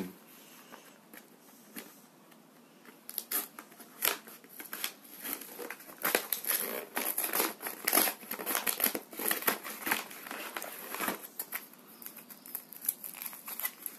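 Cardboard Kinder Surprise box being torn open and the egg's foil wrapper crinkling in the hands: a dense run of irregular crackles starting about three seconds in.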